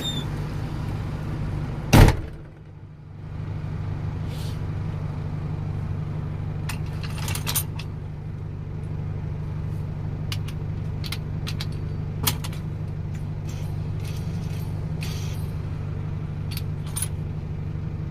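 Car engine idling steadily, its accessory belt running over a tensioner pulley whose bearings have gone dry, which the owner calls noisy. A loud knock comes about two seconds in, and short clicks sound here and there.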